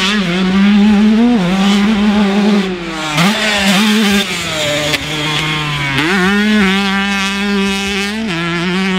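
2005 Honda CR125's single-cylinder two-stroke engine, fitted with an FMF pipe and silencer, running at high revs under a rider. The note holds high, steps down and back up several times as the throttle is worked, and climbs in a rising sweep about six seconds in.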